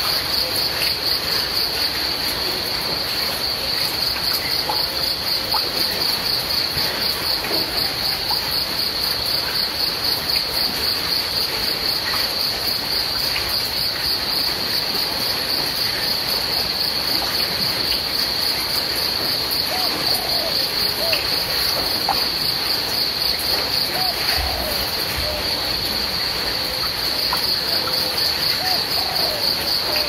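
Crickets chirping in a steady, rapidly pulsing chorus over the even hiss of falling rain.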